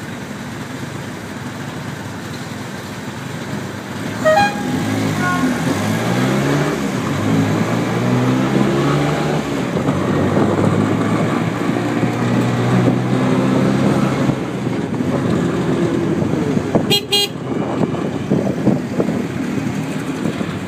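A Cocotaxi's small scooter engine running in city traffic, speeding up after about four seconds and then running steadily. A short horn toot sounds just as it speeds up, and another brief toot comes a few seconds before the end.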